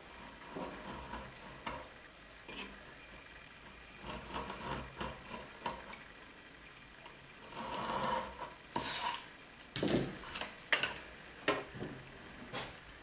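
Utility knife drawn along a steel rule, scoring through thin wood veneer in a series of short, uneven scraping strokes.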